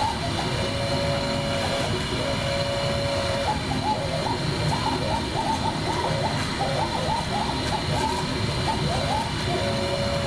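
CNC router table machining high-density tooling foam: a steady high spindle whine over a noisy hum, with the axis motors' tones shifting up and down in pitch as the head moves along the toolpath.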